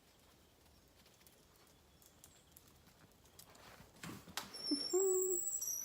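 Mostly quiet, with faint high bird chirps. About five seconds in comes a short, low, cooing call held for about half a second.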